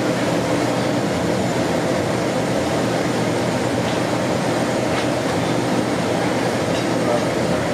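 Steady, loud mechanical roar of commercial kitchen background noise, with a few faint clicks.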